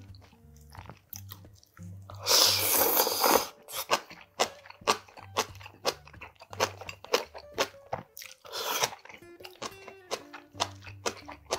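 Close-miked crunchy chewing and biting of spicy braised monkfish with bean sprouts, in quick wet crackles. Two longer, louder slurps come about two seconds in and again near the end.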